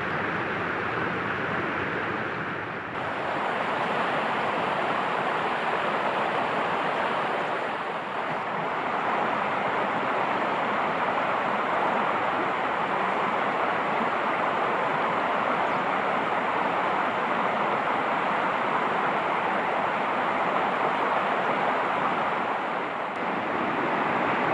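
Steady rushing of flowing water, loud and even, with brief slight dips in level.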